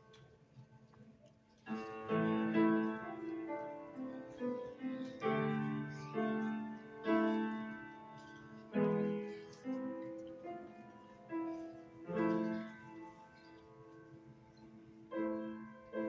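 Grand piano played solo: a short hush, then from about two seconds in a slow piece of struck notes and chords that ring and die away, each new phrase opening with a louder chord.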